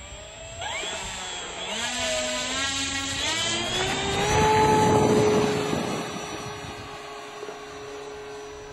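Brushless electric motor and propeller of a large RC model Pilatus Porter spinning up, a whine that climbs in pitch over the first few seconds. It is loudest about halfway through, then holds a steady tone at full power.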